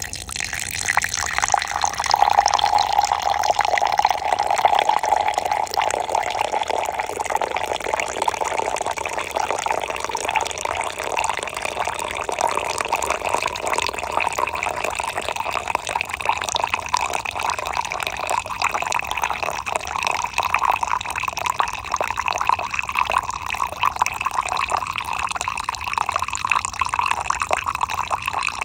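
A thin, steady stream of coffee pouring into a cup and splashing into frothy coffee. It starts abruptly and runs without a break, its pitch rising slowly as the cup fills.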